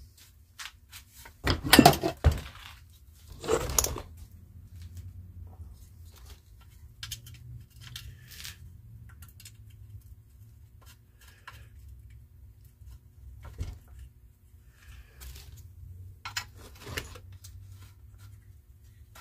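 Knocks, clicks and scrapes of a small lawnmower engine's shroud and parts being handled on a wooden workbench, loudest in a cluster about two seconds in and again near four seconds, then scattered lighter clicks. A faint steady low hum runs underneath.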